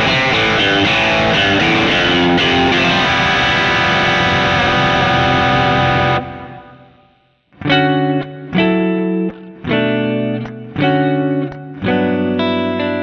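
Electric guitar played through a Bad Cat Hot Cat 40 amp profile: a continuous run of notes that fades out about six seconds in. After a moment's silence, a Gretsch hollow-body guitar strikes a series of chords, each ringing under a second with short gaps between.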